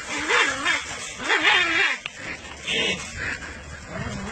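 Dogs barking and yipping at each other through a chain-link fence, a string of short calls that waver in pitch.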